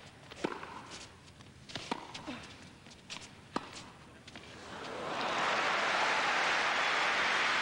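Tennis ball struck by rackets in a rally, three sharp hits about a second and a half apart. Then crowd applause swells up about five seconds in and holds loud to the end.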